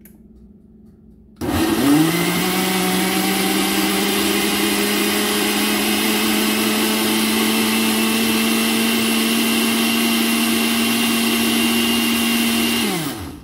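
Countertop blender grinding fresh corn kernels with condensed milk. The motor starts about a second and a half in, rises quickly to speed, runs steadily, and winds down just before the end.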